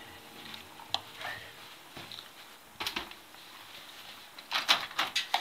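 Handling noise of a phone camera carried against clothing: fabric rubbing over the microphone with scattered clicks and knocks, and a quick run of louder knocks near the end.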